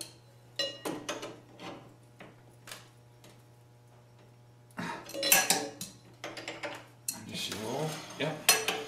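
Small steel parts and hand tools clinking and rattling against the go-kart's steel frame while the brake rod linkage is fastened: a few sharp separate clicks at first, then two longer bursts of clattering in the second half.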